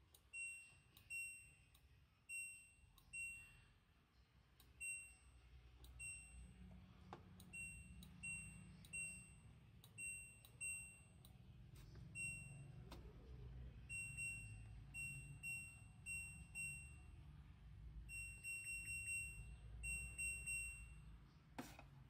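LG front-loading washing machine's control panel beeping: short, high beeps, singly and in quick runs, as the program dial is clicked round through its settings. The beeps show that the machine's button sound has been switched back on.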